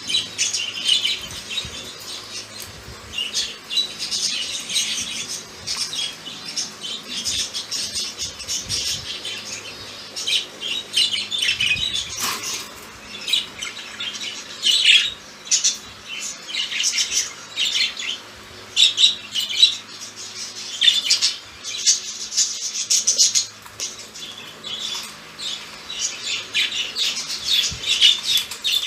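Two pet budgerigars chattering and warbling without pause, with louder sharp squawks and chirps scattered through it.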